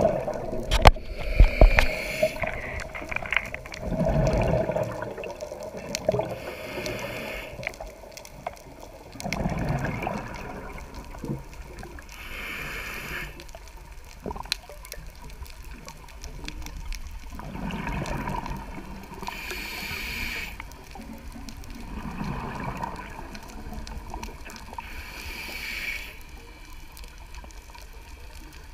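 A scuba diver breathing through a regulator underwater: a hissing inhale followed by a gurgling burst of exhaled bubbles, repeating slowly every few seconds, muffled as heard through a camera housing.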